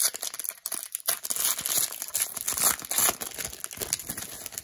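Wrapper of a hockey trading-card pack crinkling and tearing as it is ripped open by hand: a dense, continuous run of sharp crackles.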